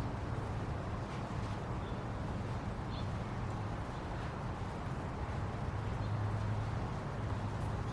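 An African grey parrot giving a few short, faint high chirps over a steady low hum.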